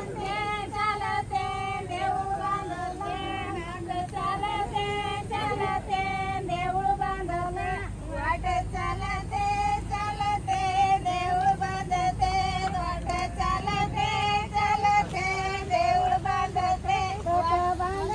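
A woman singing a song in a high voice, in long held, wavering notes with music beneath.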